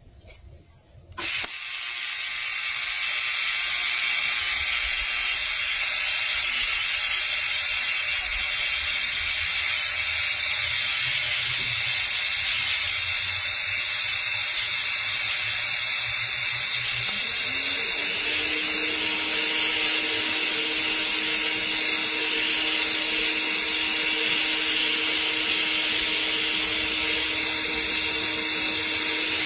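TIG welding arc laying a cap pass on a steel pipe joint: the arc strikes suddenly about a second in and then runs as a steady hiss. About two-thirds of the way through, a low steady hum joins, rising briefly in pitch as it starts.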